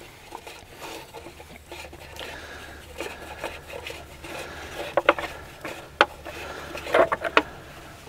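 Hands twisting a spin-on diesel fuel filter canister loose from a skid steer's engine by hand: faint rubbing and scraping of the metal filter, with a few sharp clicks in the second half.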